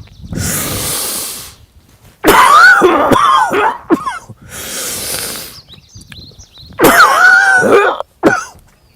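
A man drawing deep, hissing breaths in and coughing hard from the stomach, in turn: two long breaths and two loud, drawn-out coughs, each about two seconds apart. The coughs are deliberate and forced, the breath-and-cough rhythm of so-called cough CPR, not a sick cough.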